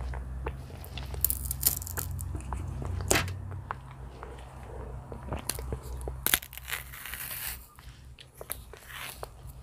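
Bananas pulled off the bunch and their peels torn open by hand, close-miked: a run of sharp snaps, clicks and crackles with short rustles of peel, over a low steady hum.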